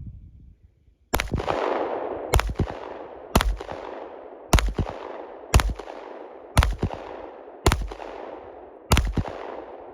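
Glock 48 MOS 9mm pistol firing 115-grain full-metal-jacket rounds at a steady pace: eight shots about a second apart, each followed by a long echoing tail. A short soft knock comes just before the first shot.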